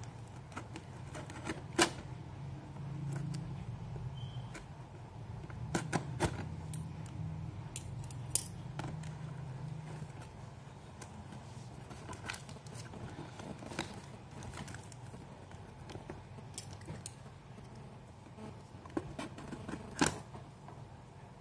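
A taped plastic parcel being cut open with scissors and handled: crinkling plastic wrap and tape, with scattered sharp snips and clicks, the loudest about two seconds in, around six seconds in and near the end.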